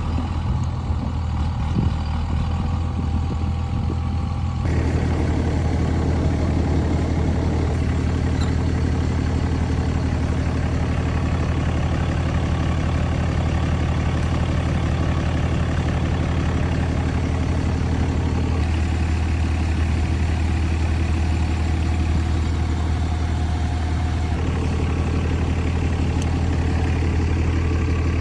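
Heavy truck engine running steadily at idle, a low even hum that steps up and grows fuller about four and a half seconds in.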